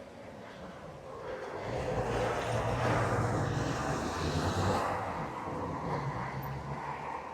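Traffic noise from a motor vehicle passing close by: its engine and tyres swell about two seconds in, stay loudest for a few seconds, then ease off.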